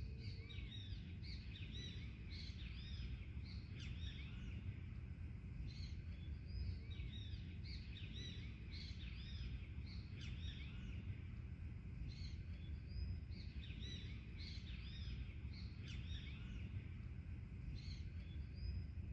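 Forest birds chirping: many short, quick arched notes overlapping in clusters, over a steady low background rumble and a faint steady high drone.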